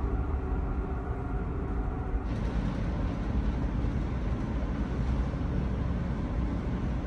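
Steady low rumble of a car ferry's engines and machinery heard from inside the ship, with a faint hum over it. The higher hiss shifts slightly about two seconds in.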